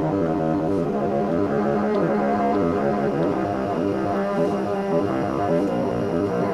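Experimental music of bassoon with electronic effects and sound processing, layered pitched notes repeating in a fast pulsing pattern.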